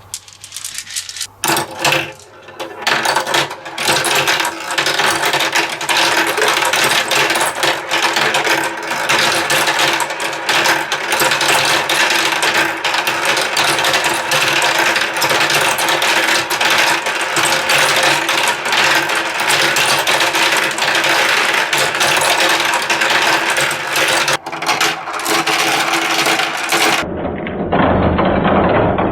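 Many marbles clattering and rolling down a plastic Kumikumi Slope marble run, a dense stream of clicks that builds within the first two seconds. Near the end the clatter turns duller.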